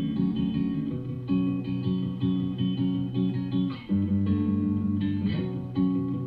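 Guitar-led music with a repeating chord pattern over a bass line, played back through Bang & Olufsen Beolab 28 active speakers.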